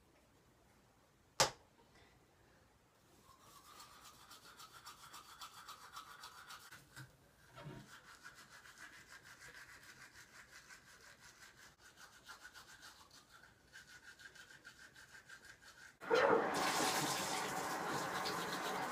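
Toothbrush scrubbing teeth, a faint, fast, even brushing. About 16 seconds in, the sink tap is turned on and water runs loudly into the basin.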